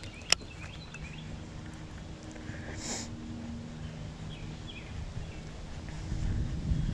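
Faint outdoor ambience with a few distant bird chirps. A single sharp click sounds about a third of a second in, and a short sniff about three seconds in.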